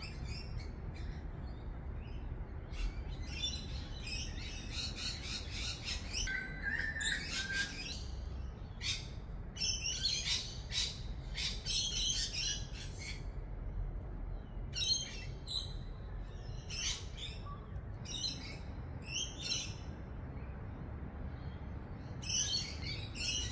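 Wild birds chirping and calling: many short high calls, some in quick runs, over a steady low rumble.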